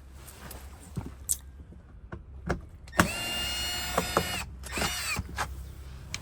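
Cordless drill/driver running in two short bursts, a steady motor whine of about a second and a half, then a shorter one that winds down in pitch as it stops. A few tool clinks and knocks come before it.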